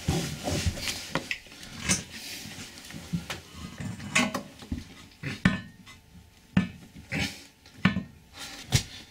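Porcelain toilet knocking and scraping on the floor as it is shifted to line up its base holes with the flange bolts: irregular single knocks and clicks every second or so, with cloth rustling close to the microphone.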